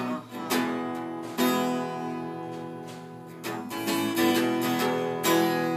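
Acoustic guitar strumming chords, each strum ringing on into the next, with no singing.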